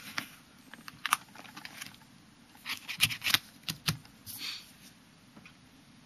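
Clear plastic album sleeves crinkling and crackling as a hand handles and turns the pages of a card album. The sharp clicks come in scattered bunches, busiest about three to four seconds in.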